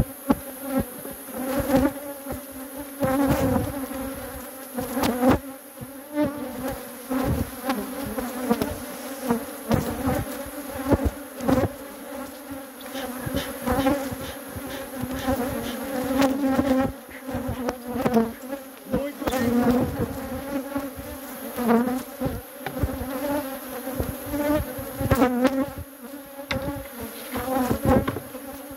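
Honeybees buzzing around an opened hive, a dense steady hum that keeps swelling and fading as bees fly close past, from a defensive colony disturbed by the inspection. Frequent short knocks and scrapes come from the hive box and frames being handled.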